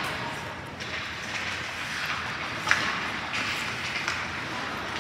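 Ice hockey play in a rink: a steady hiss of skates on the ice, with a sharp knock about two and a half seconds in and a fainter one near the end.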